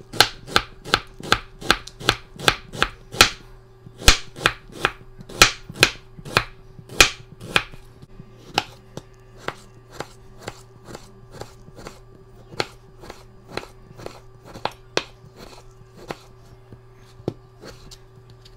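Chef's knife slicing through a red onion and then a tomato, each stroke knocking on a plastic cutting board: a steady run of sharp taps about two or three a second, softer and sparser in the second half.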